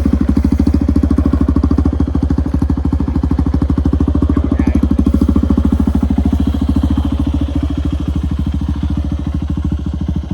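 Hero Impulse motorcycle's single-cylinder four-stroke engine running at low, steady revs, its exhaust beat a fast, even pulse of about a dozen a second, easing slightly after about six seconds.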